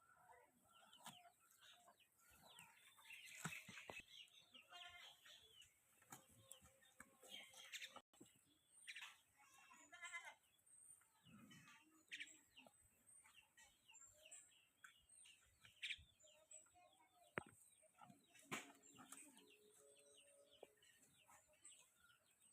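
Faint farmyard sounds: chickens clucking in short repeated runs and small birds chirping.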